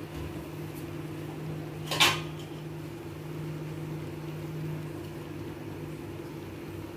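A steel ladle clanks once against a steel mixing bowl about two seconds in, over a steady low hum.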